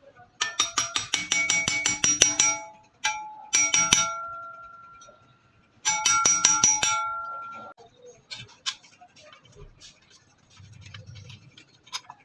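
Rapid light hammer taps on a steel cleaver blade clamped in a vise, in three runs, the blade ringing on after each run and fading. Faint ticks and handling noise follow near the end.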